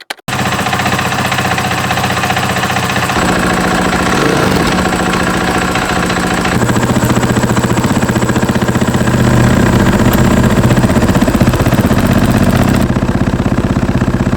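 KTM 500 EXC-F's single-cylinder four-stroke engine running steadily at idle through its exhaust. The tone changes abruptly three times, about 3 and 6.5 seconds in and again near the end.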